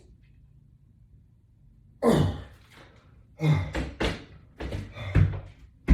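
A run of short, sudden thuds with forceful breaths, the first about two seconds in and four more close together near the end, during a resistance-band workout.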